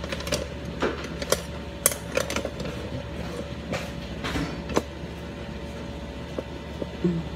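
Dishes and kitchen utensils clinking and knocking as they are handled, with scattered sharp clicks that thin out after about five seconds, over a steady low electrical hum.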